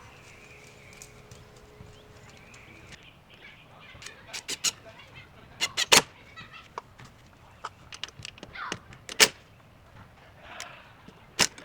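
Scattered sharp clicks and knocks, singly and in quick pairs, with the loudest about six and nine seconds in, from handling the wrought iron plant hanger and its screws against a wooden beam.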